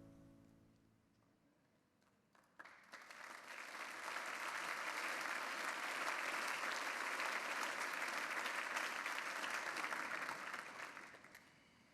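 The last notes of a song die away, then a church congregation applauds steadily for about eight seconds, fading out near the end.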